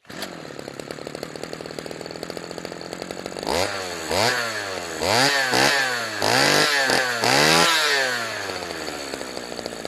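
Low-compression weed eater engine running with a heavy ATV flywheel mounted in place of its trimmer head. It idles, then is revved in a series of slow throttle blips from about three and a half seconds in, the pitch climbing and sinking gradually as the flywheel spins up and down, before settling back to idle near the end. It sounds more like a 50cc four-stroke four-wheeler engine than a weed eater.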